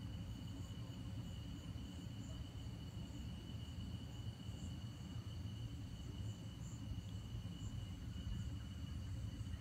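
Night insects chirping in a steady chorus, several high even tones sounding together, with a steady low rumble underneath.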